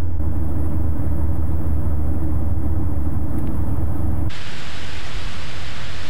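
Cabin drone of the VL3 Evolution's Rotax 915iS, a turbocharged four-cylinder boxer, and its propeller in flight, steady and low. About four seconds in it changes abruptly to a loud, even rush of airflow on a microphone outside the aircraft.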